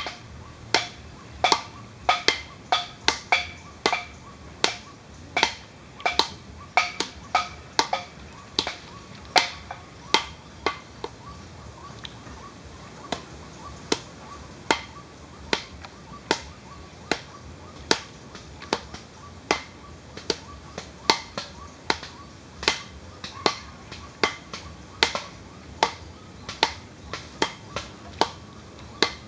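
A long run of sharp, irregular clicks, about two or three a second, each with a brief ring.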